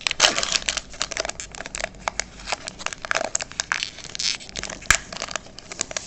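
Crinkling and rustling of a foil trading-card pack wrapper and cards being handled: a dense run of small irregular crackles and clicks.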